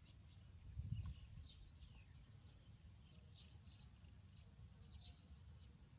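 Near silence with several faint, short high chirps at irregular intervals and a low thump about a second in.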